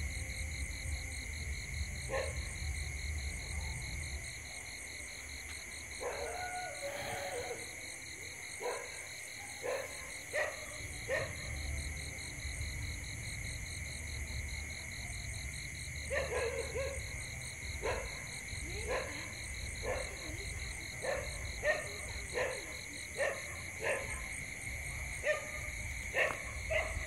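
Night ambience: a steady chorus of insects with a pulsing high trill. Short, irregular barks of distant dogs come more often in the second half.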